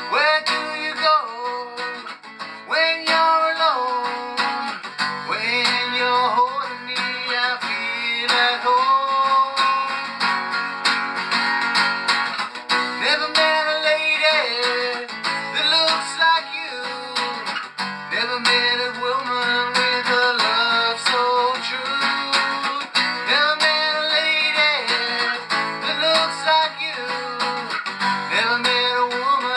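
A man singing a slow melody over strummed acoustic guitar, holding long notes that bend in pitch.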